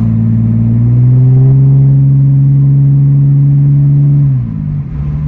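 BMW E46 exhaust with catless headers, a 4-inch single-exit Greddy muffler and a Vibrant resonator, with the main resonator deleted, heard while driving. The engine pulls under part throttle around 2,500 rpm, with its note rising a little about a second in and holding steady. Just over four seconds in the note falls sharply and settles lower.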